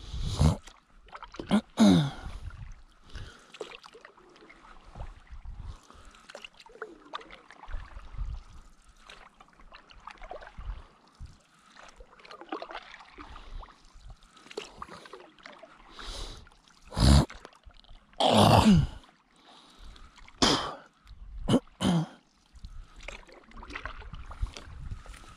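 Stand-up paddle blade dipping and pulling through calm lake water: irregular splashes and drips, a few louder strokes with a dropping gurgle, the loudest two close together past the middle.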